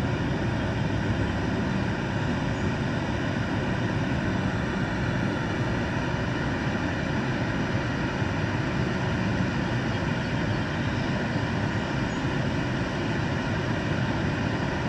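Steady rush of water flowing through a spillway.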